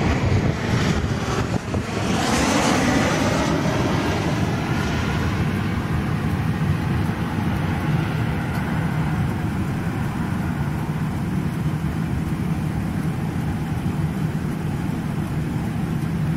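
Regional jet's rear-mounted turbofan engines on final approach, passing low overhead. The jet whine is loudest and highest about two to three seconds in, then settles into a steady rumble as the aircraft moves away.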